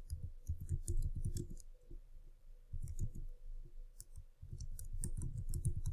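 Typing on a computer keyboard: runs of key clicks in three short bursts, with pauses between them.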